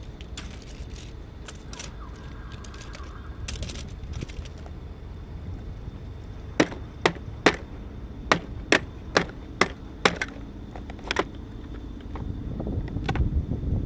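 A hammer striking scrap metal about ten times in quick succession, roughly two blows a second, in the second half, with one more blow near the end, beating at the housing to work an electric motor loose.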